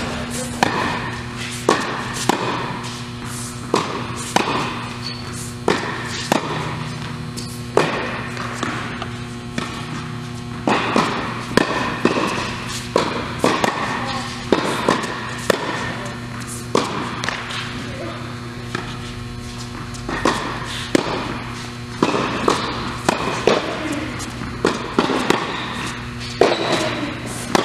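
Tennis balls struck by rackets and bouncing on an indoor hard court in a steady rally, sharp hits about every second, over a steady electrical hum.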